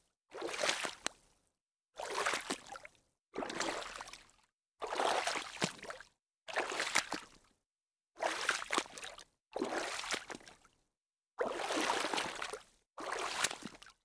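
Water splashing in a series of about nine separate splashes, each lasting around a second, with brief silences between them.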